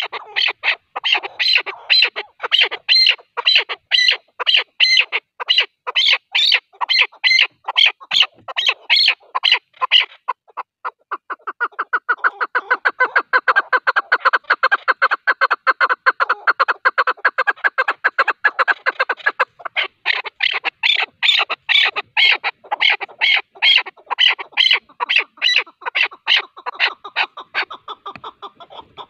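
Chukar partridge calling: a long, rapid series of clucking 'chuck' notes, about three to four a second. From about ten seconds in, the calls turn into a lower, faster chatter for several seconds. Then the higher clucks return and thin out near the end.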